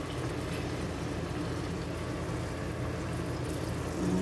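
Chicken strips sizzling steadily in hot oil in a wok, frying toward browning.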